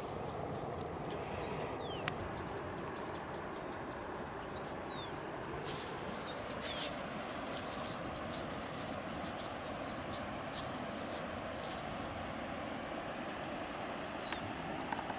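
Open-air riverbank ambience: a steady background hiss, with small birds chirping in short, high notes, most often in the middle, and a few faint clicks.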